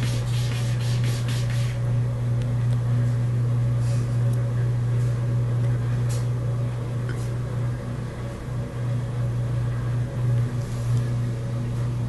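A cat clawing at a large presentation check board, rapid scratching strokes for about the first second and a half that then stop. A steady low hum runs underneath.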